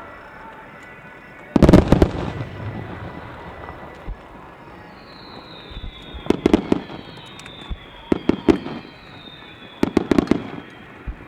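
Aerial firework shells bursting in a music starmine: a loud volley of bangs with a rumbling tail near the start, then three quick clusters of sharp cracks later on, over music.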